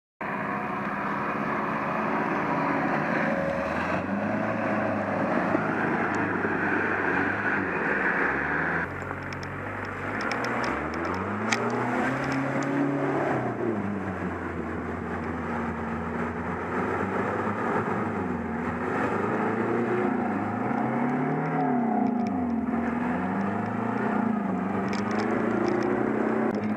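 Off-road 4x4's engine revving up and down over and over as it works through rough terrain, with a few sharp knocks along the way.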